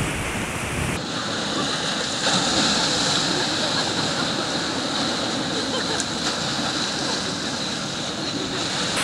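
Sea surf washing onto the beach: a steady rushing wash of breaking waves.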